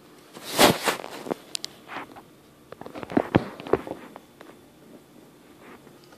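Smartphone being handled and repositioned close to its microphone: a burst of rubbing about half a second in, then a cluster of sharp knocks and clicks around three seconds in.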